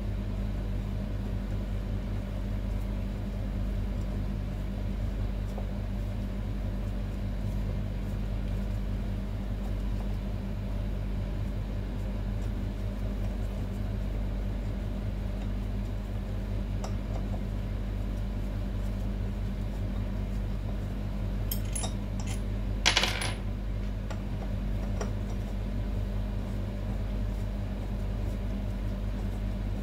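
Steady low hum, with a few light metallic ticks and then one sharp metal clink that rings briefly, about three-quarters of the way in: metal tools and parts of a barber chair's hydraulic lift cylinder being handled on the workbench.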